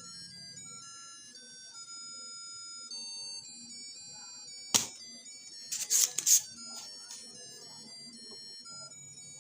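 Crystal ball party light's built-in music chip playing a simple electronic tune of plain beeping notes stepping up and down. A sharp click comes about five seconds in, followed a second later by a quick cluster of louder clicks or knocks.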